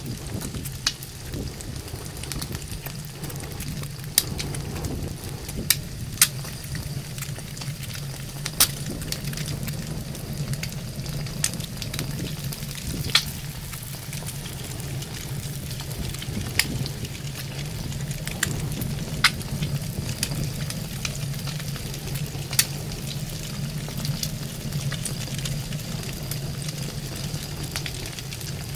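Eggs sizzling in a frying pan over a bed of burning matchsticks, with sharp pops every two to three seconds.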